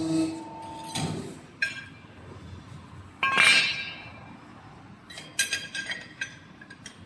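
Steel parts clinking and clattering in a brake shoe welding machine, with a louder burst about three seconds in and a run of quick clinks near the end.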